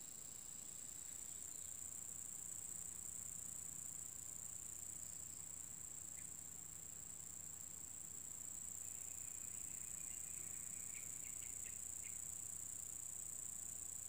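Steady high-pitched insect chirring, unbroken throughout, with a few faint short high chirps in the second half.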